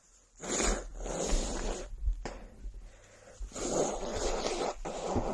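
A woman blowing her nose hard into a handkerchief: two long blows, each about a second and a half, with a brief click between them.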